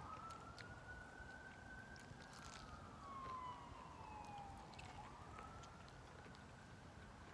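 Faint emergency-vehicle siren wailing: its pitch rises, holds for a couple of seconds, falls slowly and starts rising again about five seconds in.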